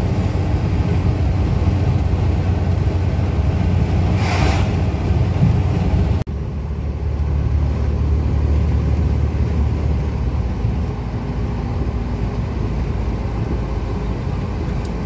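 MAZ timber truck's diesel engine running steadily on the road, a loud low rumble with road noise heard from the cab. A brief swish comes about four seconds in, and about six seconds in the sound breaks off abruptly and resumes slightly quieter.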